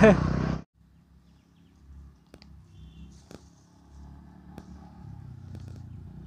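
Riding noise from a moving motorcycle, wind and engine rush, cuts off abruptly about half a second in. Then a faint, distant scooter engine approaches up the road, growing slowly louder, with a few faint clicks and a brief high chirp about three seconds in.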